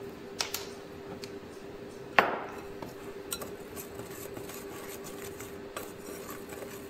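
Wire whisk stirring dry flour in a glass mixing bowl, clinking against the glass now and then; the loudest clink, with a short ring, comes about two seconds in. A steady low hum runs underneath.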